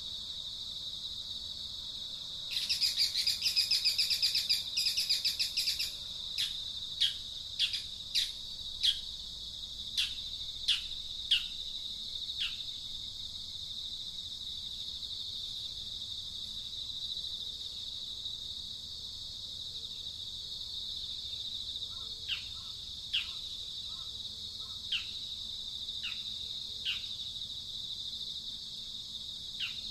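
Outdoor ambience of a steady high insect drone and bird calls. A burst of rapid chirping comes about three seconds in. Then come series of short, downward-sliding call notes about a second apart, one series early on and another near the end.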